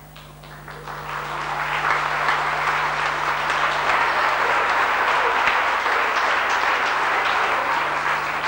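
Audience clapping in a hall, swelling over the first couple of seconds into steady applause.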